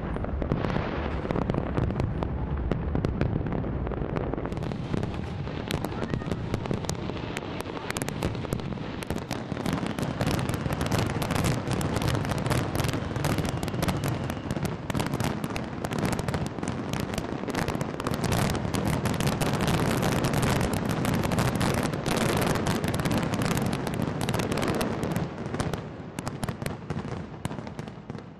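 Large fireworks display: a continuous barrage of shells bursting, with low rumbling booms under dense crackling. The crackle thickens a few seconds in, and the barrage thins out near the end.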